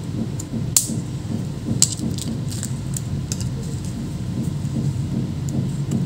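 Plastic pry tool clicking against a laptop motherboard's flat-cable connector latches: a handful of short, sharp clicks, the loudest about a second in, over a steady low hum.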